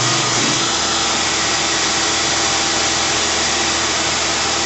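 Tormach PCNC 1100 CNC mill cutting a disc of UHMW polyethylene plastic while a vacuum hose held at the cutter sucks up the chips: a steady mix of cutting noise and vacuum rush. A low hum comes in under a second in.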